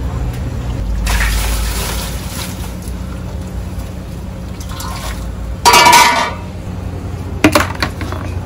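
Large pot of steaming noodle water with a steady low rumble under it. Water is scooped and poured with a plastic bowl, loudest about five and a half seconds in, followed by a sharp clatter near the end.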